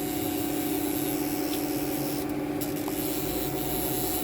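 Haas TM-2P CNC mill running: a steady hum with an even hiss over it.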